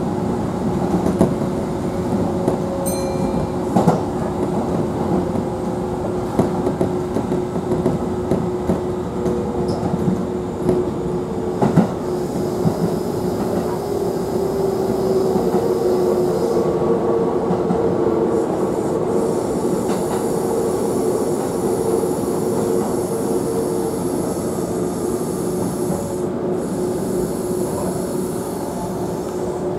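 Kintetsu local electric train heard from inside the car while running on the track: a steady rumble of wheels on rail with motor hum and a couple of sharp clacks from rail joints. The motor tones glide slowly downward in the middle, with faint high ringing tones in the second half, as the train slows toward a station.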